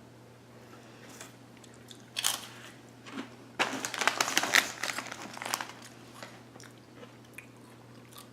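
A crunchy barbecue-flavoured chip being bitten and chewed: a crack about two seconds in, then a stretch of dense crunching for about two seconds.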